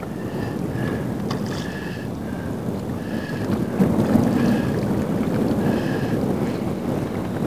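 Wind buffeting the microphone over open water, with the haze swelling louder about four seconds in as a hooked bonefish thrashes beside the boat. Short high chirps repeat every second or so throughout.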